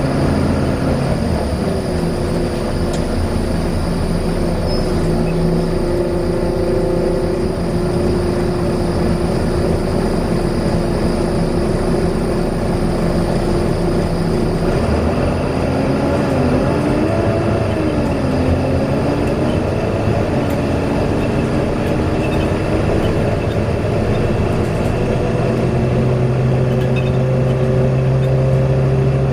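Volvo B9TL double-decker bus running, with a loud whine over the engine noise that rises and falls with the bus's speed: steady at first, dipping twice about halfway through, then climbing gradually near the end.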